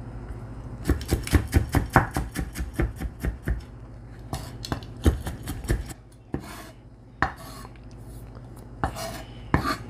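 Chef's knife chopping fresh ginger on a wooden cutting board. About a second in comes a quick run of strikes, roughly five a second, for a couple of seconds, then slower, scattered knocks of the blade on the board.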